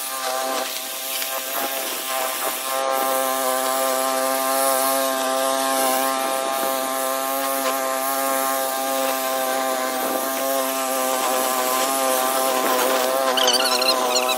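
Small gas engine of a walk-behind mower running steadily at a nearly constant pitch as it is pushed through grass.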